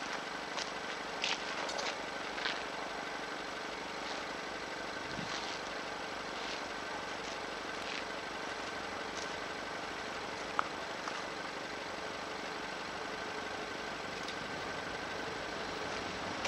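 Distant Union Pacific diesel locomotives of an approaching eastbound freight train, running as a low, steady drone, with a few faint clicks.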